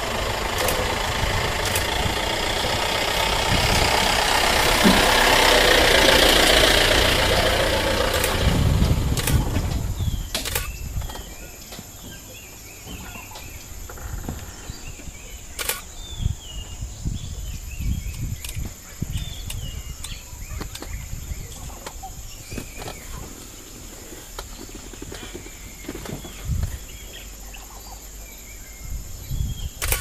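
A vehicle engine runs loudly, then fades away about ten seconds in. Birds are left chirping, with a few sharp clicks and a steady high hum underneath.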